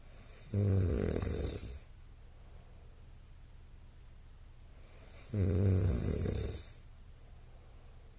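A middle-aged man snoring loudly in his sleep: two snores, each about a second and a half long and about five seconds apart.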